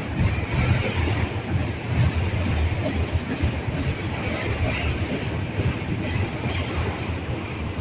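Union Pacific freight train rolling past, a steady rumble of wheels on the rails with no horn sounding.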